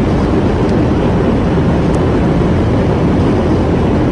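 Steady, loud roar of an aircraft, an even rumbling noise with no distinct events.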